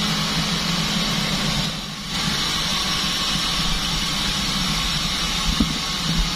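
Band sawmill running and sawing durian wood: a steady mechanical noise with a low hum, dipping briefly about two seconds in.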